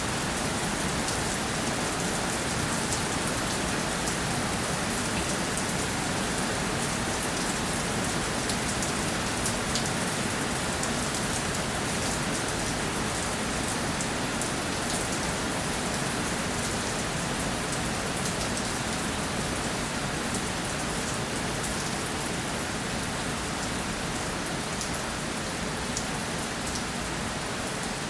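Steady rainfall: an even hiss of rain with many small drop ticks on a surface.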